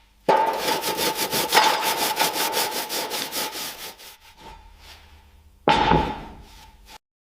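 Fast back-and-forth rasping strokes of a hand abrasive tool on a metal toy car part, with a faint ringing tone. The strokes start a moment in and tail off after about four seconds, then one more short burst comes near the end.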